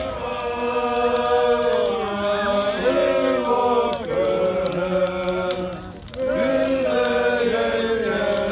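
A group of voices singing Seto leelo, the Seto polyphonic folk song, in long held chanted lines with several parts together. The singing breaks off briefly about six seconds in, then the group comes in again.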